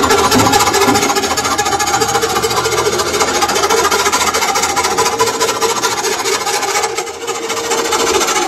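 Lathe cutting tool squealing against the edge of a thin metal stove-frame ring spinning in the chuck: a steady squeal over fast rattling chatter.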